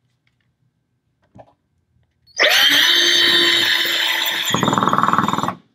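Cordless drill driving a TAPCON masonry screw into a concrete block, starting about two and a half seconds in. It runs as a steady whine for about two seconds, then turns to a lower, fast rattle for the last second as the screw goes home, and stops suddenly.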